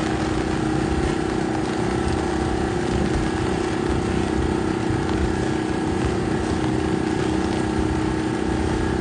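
A motor drones at a steady pitch, with gusty wind rumbling on the microphone beneath it.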